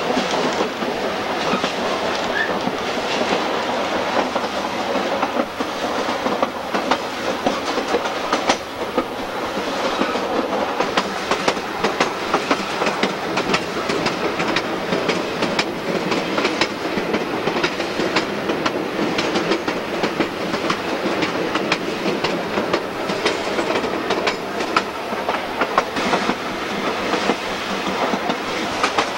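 Railroad car rolling along jointed track, heard from on board: a steady rumble with frequent sharp clicks of the wheels over rail joints.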